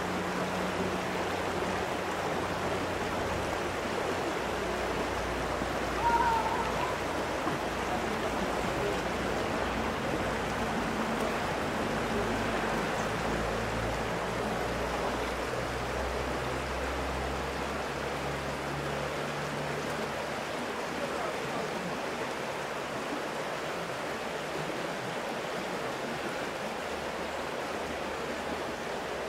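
Steady rushing noise of a stream's flowing water, with a faint low hum underneath and one brief high chirp about six seconds in.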